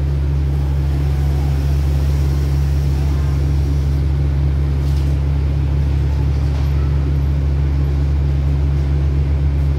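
Diesel passenger train standing at a platform with its engines idling: a steady low drone.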